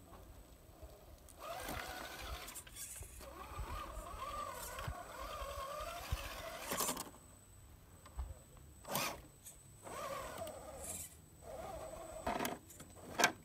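Electric motor and gears of a radio-controlled crawler truck whining as it climbs rock, the pitch wavering with the throttle for several seconds, then coming in several short bursts in the second half.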